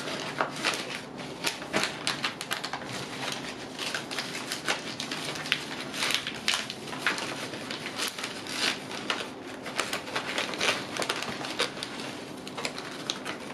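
Plastic-wrapped bandages crinkling and a nylon pouch rustling as the bandages are pushed in behind the pouch's elastic straps: an irregular run of crackles and rustles.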